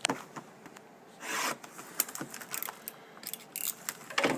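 Hockey cards and their cardboard box being handled: scattered taps and clicks, with a rasping scrape of cardboard about a second in.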